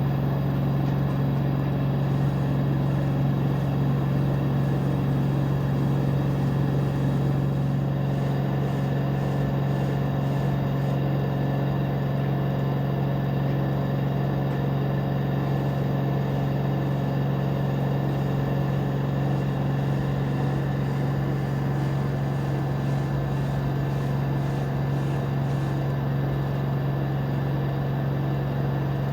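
LG 13 kg front-loading washer-dryer spinning at its top speed of 1,250 rpm: a steady hum with a strong low tone, which the owner takes for the normal noise of the motor and not a fault.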